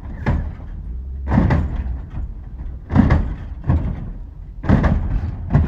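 Lowrider hydraulic suspension worked from the switch: a run of loud clunks as the car is jumped and dropped, about six in quick succession, over a steady low hum.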